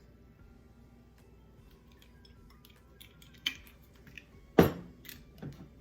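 Kitchen items being handled on a counter: a few sharp clicks and knocks, the loudest about three-quarters of the way in, over faint background music.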